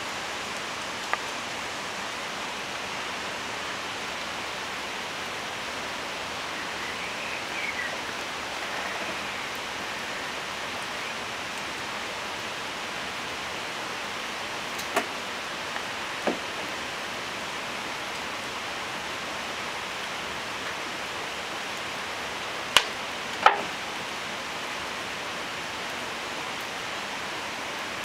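Wood campfire burning in the rain: a steady hiss, with a few sharp pops from the burning wood, the two loudest close together about three quarters of the way through.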